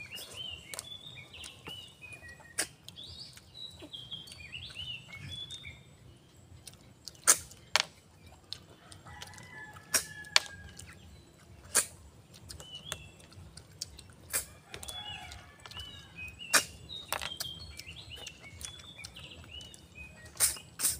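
Sharp clicks and smacks every second or so from snails being eaten by hand, as shells are sucked and handled. Birds chirp in the background in two spells, near the start and again in the second half.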